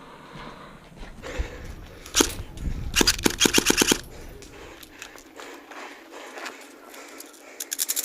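Airsoft guns firing: a single shot about two seconds in, then a full-auto burst of about a second at roughly eight shots a second. Another rapid burst starts near the end.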